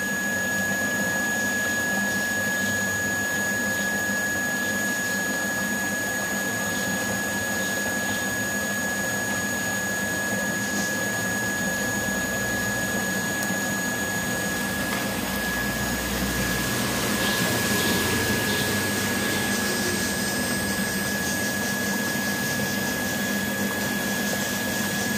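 Filtered rainwater rushing steadily through a PVC pipe and pouring down into a borewell casing, recharging the borewell. It is a continuous watery rush with a thin, steady high-pitched tone running through it.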